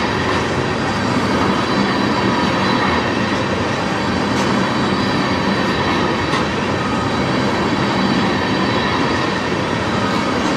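Freight train of tank cars rolling past close by: a steady, loud noise of steel wheels running on the rails.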